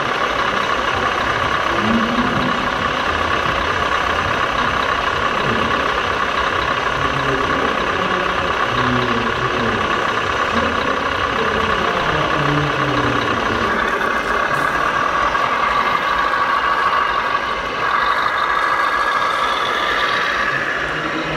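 Steady truck engine sound from RC model fire trucks running, with the noise of a busy hall and its crowd beneath.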